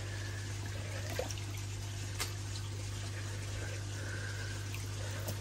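Steady trickle of koi pond water over a low, steady hum, with a couple of faint ticks.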